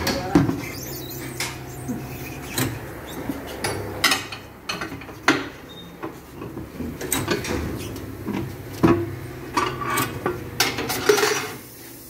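Mondolfo Ferro tyre changer in use as a tyre is worked over the rim: repeated sharp metal clanks and knocks with short rubber squeaks, over a low steady hum.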